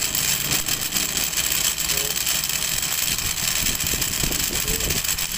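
Coil winding machine running steadily, winding wire onto the 500-turn starting coil of an electric motor's stator.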